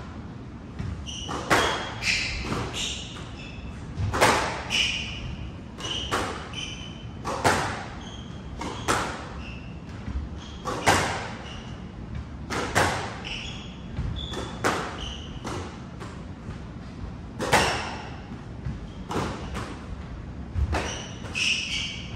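Squash rally: the ball struck by rackets and smacking off the walls in sharp hits every second or so, often in quick pairs, with sneakers squeaking on the hardwood court floor between shots.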